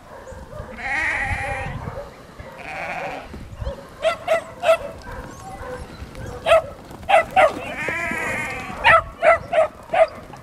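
Sheep bleating in a few long wavering calls, and kelpie pups barking in quick high-pitched yaps that come in short runs of three or four through the second half.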